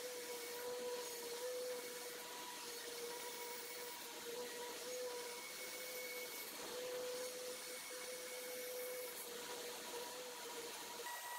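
Band saw running with a steady hum and noise, its blade making short cuts into a small round of plum wood as the piece is turned. The hum's tone stops shortly before the end.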